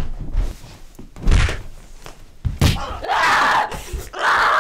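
Three heavy thuds about a second apart, bodies and a door banging in a scuffle on a wooden floor, followed near the end by a loud, sustained strained yell as a woman wrestles a man down.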